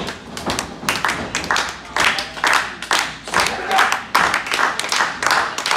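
Small crowd clapping, with louder claps coming roughly twice a second.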